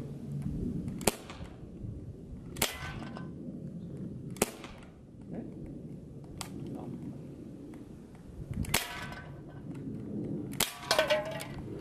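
Air pistol firing .177 BBs: about six sharp shots at uneven intervals, two of them close together near the end, with a brief metallic ring after some of them.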